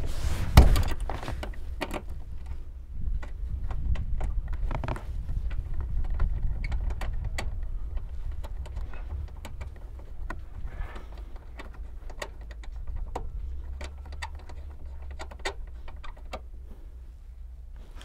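Seat-mounting bolts being threaded in by hand at the seat rails: scattered small metallic clicks and taps, with a louder knock about half a second in, over a low rumble.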